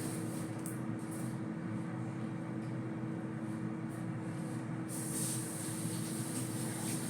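A steady background hum with one constant tone running through it; about five seconds in, a higher hiss joins it.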